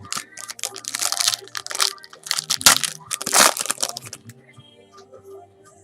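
Foil trading-card pack wrapper being torn open and crinkled, in a run of crackling bursts that stop about four seconds in.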